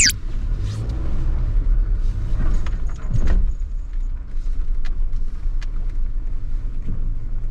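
Suzuki Jimny JB64W driving slowly on a dirt and gravel forest road, heard from inside the cabin: its 660 cc turbo three-cylinder and the tyres make a steady low rumble. A few sharp clicks and knocks come from the track around the middle. A brief rising whoosh of an edited sound effect comes right at the start.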